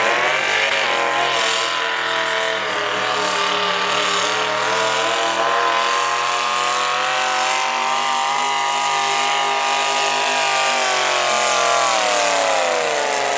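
Big-block V8 in a rail-style pulling tractor at full throttle, pulling the weight-transfer sled. The engine revs up as it launches, holds high revs with small wavers under load, then drops in pitch near the end as the tractor slows.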